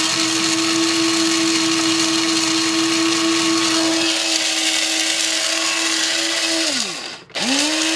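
Electric coffee grinder running at full speed, grinding a mix of brown and jasmine rice toward a fine powder: a steady motor whine over the rattle of grains. About seven seconds in it winds down and is switched on again at once for another run.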